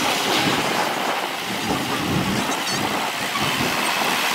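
Tractor engines running as a Massey Ferguson tractor and others drive past at slow speed.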